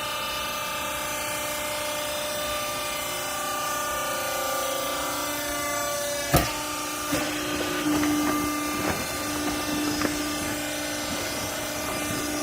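Semi-automatic used-clothes baler running with a steady motor hum. A sharp bang comes about six seconds in, followed by a run of irregular knocks and clunks.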